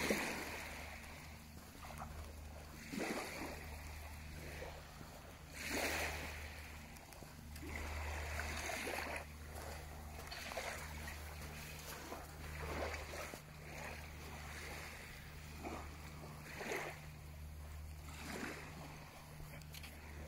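Small waves washing and lapping on a sandy shore, swelling in short surges every one to three seconds, over a steady low rumble.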